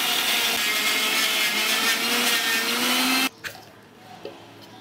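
Electric mixer-grinder dry-grinding roasted sesame seeds and garlic in a steel jar, running loud and steady, then cutting off suddenly a little after three seconds in. A faint click follows as the jar's lid is lifted off.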